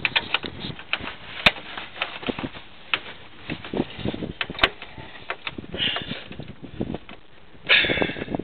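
Irregular metallic clicks and knocks of hand tools and fasteners as screws and bolts are fitted to mount a car's windshield washer reservoir, with brief scraping about six seconds in and again near the end.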